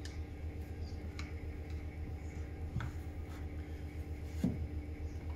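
Screwdriver tips scraping and clicking against the plastic tank and rubber seal of a backpack sprayer as a seal is worked into its opening: a few short sharp ticks, the loudest about four and a half seconds in, over a steady low hum.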